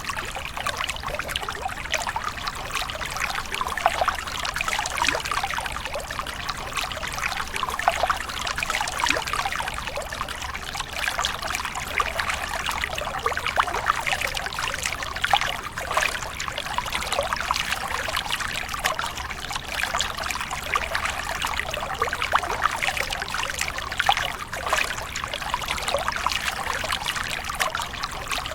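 Water trickling and splashing steadily, with a sharper splash every several seconds, where monkeys are jumping in and bathing.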